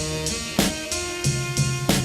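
Background music: a drum-kit beat with bass and snare hits, over sustained pitched instrument notes.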